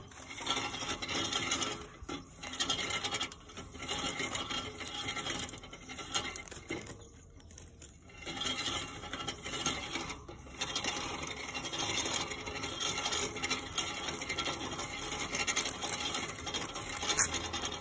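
Crackly paper rustling and rasping scratches in stretches, with short lulls about two, seven to eight and ten seconds in: a small pet rodent in its cage pulling at and shredding paper.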